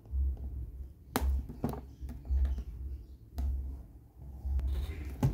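Hands turning a shrink-wrapped cardboard box, with low handling bumps and a few sharp taps and clicks against the packaging.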